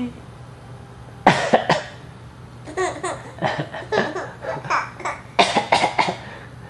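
Breathy, gasping laughter in short bursts, in several runs separated by brief pauses.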